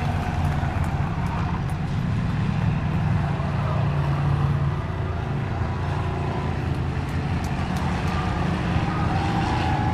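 Engines of a pack of figure-8 train race cars running together around the track in a steady, heavy drone, swelling slightly as the cars pass.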